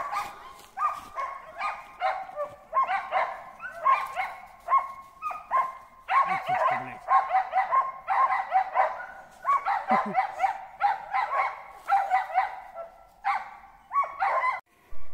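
Hunting dogs barking in fast, steady runs of several barks a second, baying at a squirrel treed in a birch. The barking stops shortly before the end.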